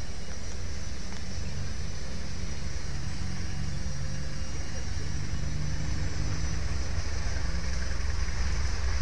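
CC 201 diesel-electric locomotive approaching: a low, steady engine drone that grows slowly louder.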